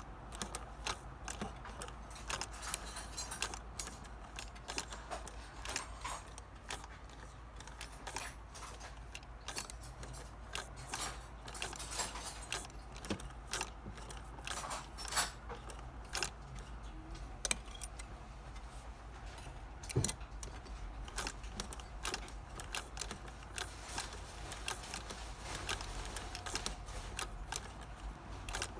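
Irregular small metallic clicks and clinks from an antique Singer 99 sewing machine being handled and worked, over a steady low hum.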